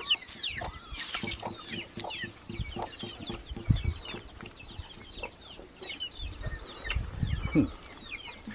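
Domestic chickens clucking and peeping, with many short falling chirps throughout. A few dull thumps and rustles come through near the middle and near the end.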